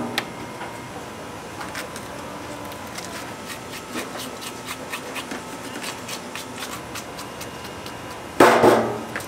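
Kitchen handling sounds: scattered light clicks, taps and rubbing of hands and utensils over a faint steady hum, with one louder, brief burst of sound about eight and a half seconds in.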